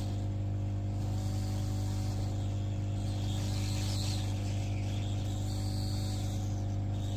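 Hot air rework gun blowing steadily: a constant hum with a light airy hiss, heating a circuit board to reflow the solder under a chip.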